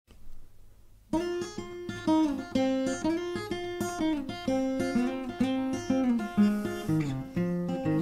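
Acoustic guitar playing a blues intro: a run of picked notes and strums, some of them bent, starting about a second in.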